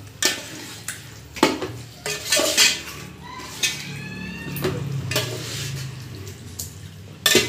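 Metal spoon scraping and clinking against the side of a large stainless-steel pot while stirring chicken into a thick curd and spice marinade, with several irregular sharp clinks, the loudest near the end.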